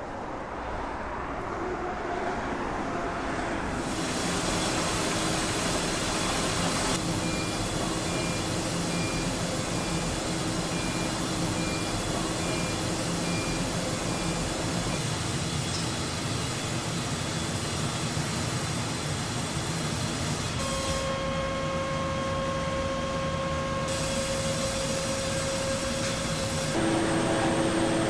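Steady hum and whir of ice cream factory machinery around stainless mixing tanks whose agitators are stirring the chocolate mix, with a few steady whining tones. The noise changes in character abruptly several times and gets louder near the end.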